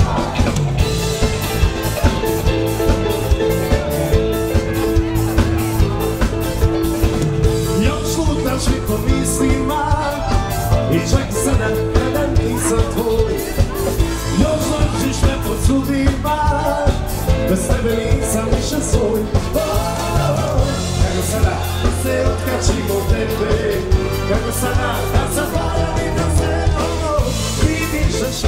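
A band playing a pop-rock song, with a singer over a steady drum beat.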